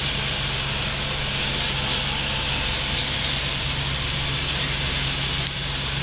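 Massey Ferguson 4235 tractor's diesel engine running steadily under load, heard from inside the cab, with the Taarup silage harvester chopping and blowing grass.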